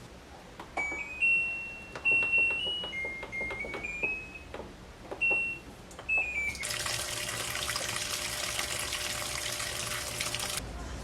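A short tune of electronic beeps stepping up and down in pitch, with a few clicks among them. Then a steady rushing hiss for about four seconds that cuts off suddenly.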